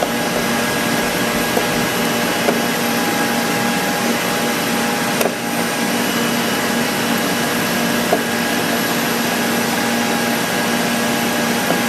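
Steady whirring machine noise with a constant hum, like a running fan or vacuum motor, and a few faint clicks.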